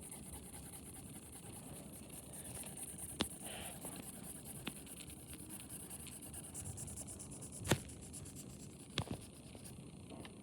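Faint scratching of a marker colouring on paper, with a few light taps or clicks.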